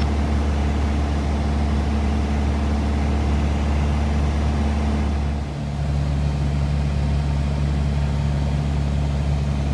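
Light airplane's engine droning steadily in the cockpit, with a brief dip and a shift in its tone about five and a half seconds in.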